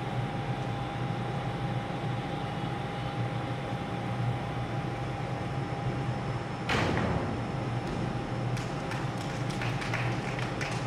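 Steady hum of a sports hall's ventilation. About two-thirds of the way through, one loud thud from a gymnast's vault. Near the end come a series of light, sharp clicks.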